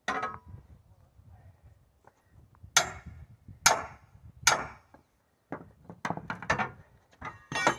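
Metal tyre tools striking while dismounting a large tractor tyre from its rim: a knock, then three hard ringing strikes a little under a second apart, followed by a run of lighter knocks and clinks.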